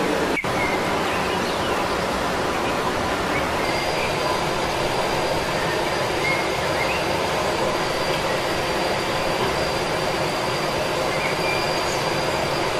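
Steady rushing noise, even and unbroken, with a faint high steady tone joining about four seconds in and a few faint short chirps.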